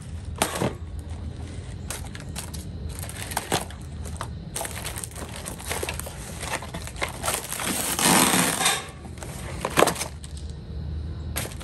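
Cardboard packaging being handled as a solar panel and its inner box are pulled from a shipping box: irregular rustling and scraping of cardboard with scattered knocks. A longer, louder scrape comes about eight seconds in, and a sharp knock just before ten seconds.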